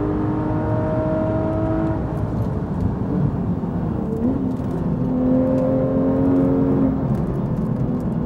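Porsche GT3 RS flat-six engine running at fairly steady revs, its pitch changing in steps: it rises in a short glide about halfway through and drops again near the end.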